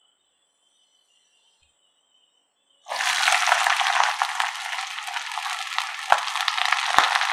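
Chopped shallots dropped into hot gingelly (sesame) oil in a wok, starting a loud, steady sizzle about three seconds in after a near-silent start. Sharp pops come near the end as curry leaves go into the oil.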